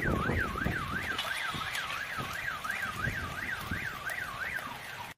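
Car alarm siren wailing, its pitch sweeping up and down about three times a second, then stopping shortly before the end. Underneath it, gusting wind buffets the microphone and heavy rain falls.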